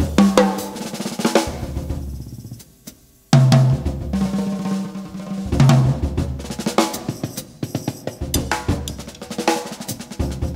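Jazz drum kit played in a solo passage: busy snare and tom strokes with bass drum and cymbals, broken by a pause of about a second around three seconds in before the playing resumes hard.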